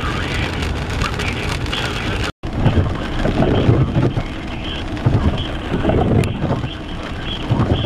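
Wind buffeting the microphone over a steady rumbling hiss, cut off by a brief moment of silence about two and a half seconds in, then returning in irregular gusts.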